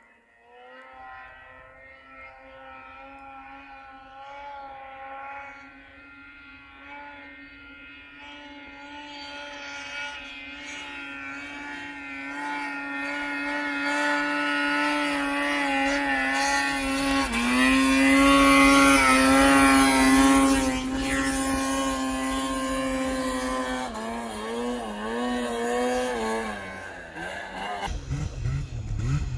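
Snowmobile engine running at a steady high pitch, growing louder as the sled comes closer and loudest about two-thirds of the way through. Near the end the note wavers and drops as the sled slows, and short revs start just at the close.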